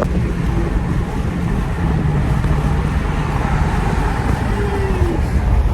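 A 2017 Dodge Charger 392 Daytona's 6.4-litre HEMI V8 running under way, heard from inside the cabin with road noise: a steady low rumble.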